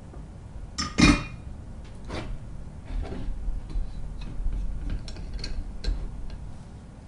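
Small hard clicks and clinks of tools and parts being handled during soldering: one louder knock about a second in, then a scatter of lighter ticks.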